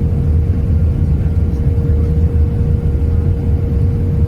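Airbus A319 cabin noise: a steady low rumble of engines and airflow with a constant hum over it.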